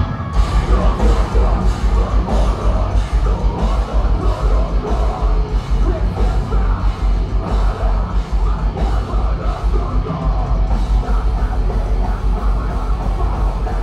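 Metalcore band playing live through a concert PA: loud distorted guitars over a rapid, pounding kick-drum pulse, with yelled vocals. The sound drops out for an instant at the start, then the full band comes back in.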